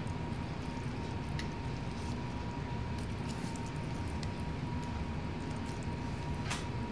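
A frying pan of lemon-butter sauce simmering as fried chicken cutlets are laid back into it: a steady low bubbling with scattered small pops and crackles, one a little sharper near the end.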